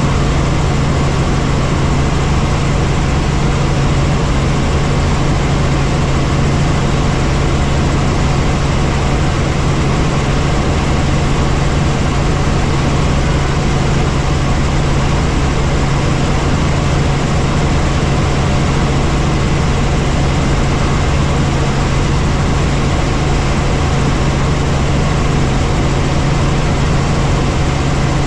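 Helicopter in flight: a loud, unchanging drone of engine and rotors with a constant low hum underneath.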